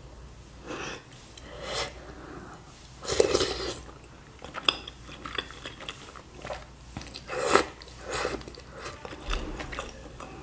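Eating sounds of bakso: a meatball and noodles in spicy broth being slurped and chewed. The loudest bursts come about three and seven and a half seconds in.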